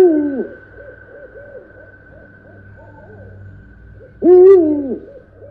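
Owl hooting twice, about four seconds apart, each hoot a loud rise-and-fall of about half a second, in an eerie ambient soundscape with fainter calls and a steady high drone behind.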